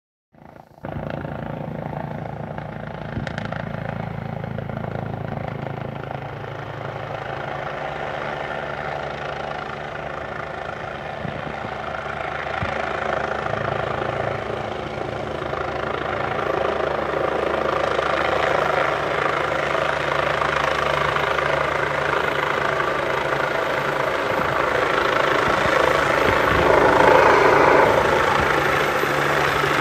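Medical helicopter flying in to land, its rotor and engine noise steady and growing louder as it approaches, loudest near the end.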